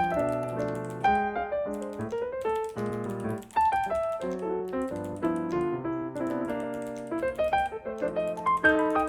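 Background piano music: several notes sounding together, with the chords and melody changing about every half second.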